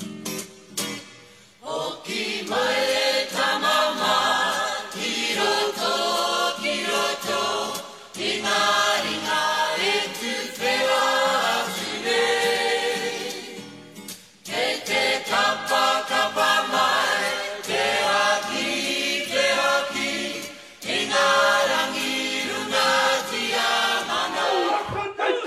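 A group of Maori performers singing a song together in several long phrases, with short pauses between them.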